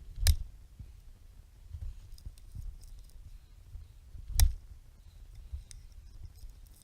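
Two heavy knocks of wood being struck, about four seconds apart, with faint small clicks between them.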